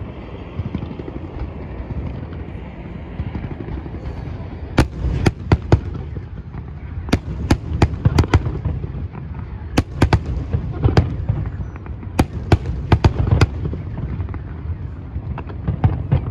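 Aerial fireworks display: a low continuous rumble of shell bursts, then from about five seconds in a rapid, irregular run of sharp bangs and cracks, with a few more bangs near the end.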